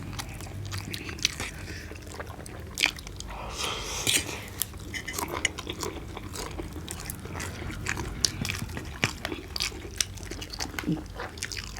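Close-miked eating: a person biting and chewing roast chicken and noodles, with many irregular crisp crunches and wet mouth clicks.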